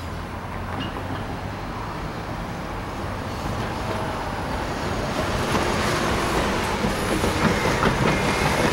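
Freight train rolling past on the rails, its steady rumble growing louder, with clicking from the wheels over the track joints in the second half.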